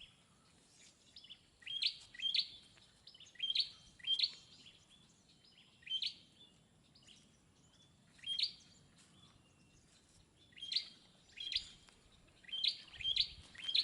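A wetland bird calling: short, high, clipped notes repeated at uneven intervals, sometimes two in quick succession.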